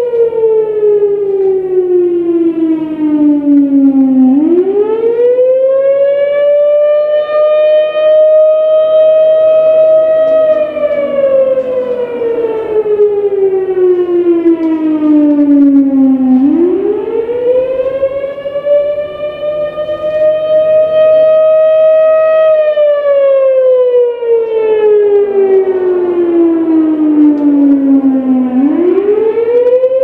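Federal Signal Thunderbolt 1000 outdoor warning siren sounding a wail during a test. Its pitch rises quickly, holds high for several seconds, then glides slowly down, and the cycle repeats about every twelve seconds.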